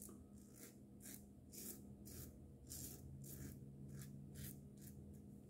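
Double-edge safety razor scraping stubble through lather in short strokes, about two a second, during a cleanup pass. The strokes are faint and scratchy.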